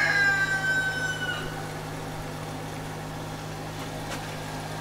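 A rooster crowing, its long held note falling slightly and ending about a second and a half in, over the steady low hum of the forge blower running.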